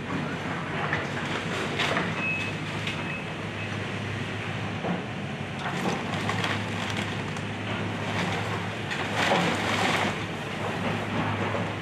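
Excavator's diesel engine running steadily during a house demolition. Irregular crashing and crunching of breaking building debris comes about 2 s in, around 6 s, and loudest at 9–10 s.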